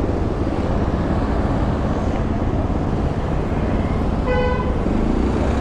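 Steady rumble of a motorbike riding through city traffic, with a vehicle horn tooting once, briefly, a little after four seconds in.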